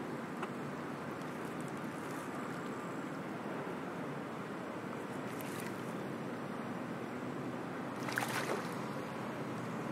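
Steady outdoor field-recording ambience by a pond: an even wash of wind and water noise, with a short cluster of crisp sounds about eight seconds in.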